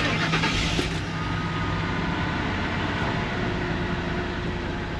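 Ford 5.4L Triton V8 engine starting, with a noisy rush in the first second, then settling into a steady idle. It has a miss that the driver puts down to an exhaust leak.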